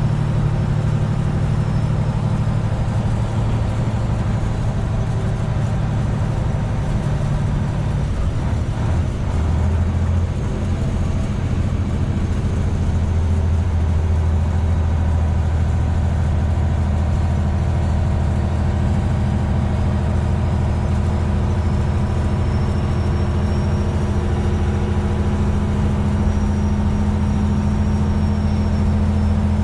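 Semi truck's diesel engine droning steadily in the cab while driving. About nine seconds in the engine note changes to a lower, steadier pitch and then holds.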